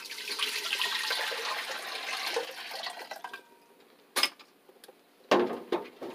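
Water poured from a jug into an empty stainless steel stockpot, a steady splashing rush for about three and a half seconds that then tails off. A sharp click and then a louder knock follow near the end.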